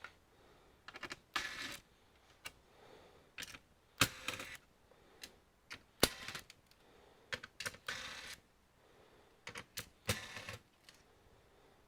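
Irregular clicks, taps and short scrapes of an all-in-one computer's internal parts being handled during disassembly, with the sharpest knocks about four and six seconds in.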